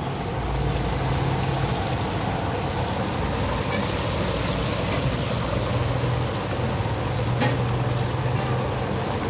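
Green-marinated chicken pieces deep-frying in a large pan of hot oil, with a steady, dense sizzle that builds a little as the pieces go in. A low, steady hum runs underneath.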